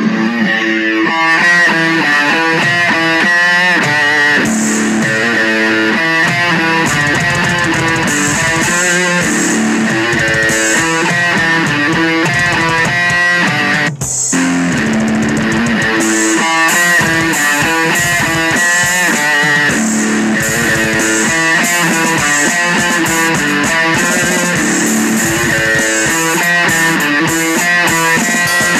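Rock song driven by electric guitar riffs, with a drum kit and crash cymbals played along. The music drops out for a split second about halfway through.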